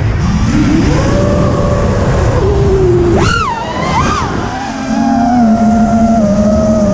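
Whine of a 6S FPV quadcopter's four Amax 2308 1800 KV brushless motors spinning Gemfan 51466 props, heard through the onboard camera over a low rush of air. The pitch climbs with throttle about a second in, surges sharply and wobbles up and down around the middle during a hard manoeuvre, then holds a steadier lower whine as the quad cruises fast and low.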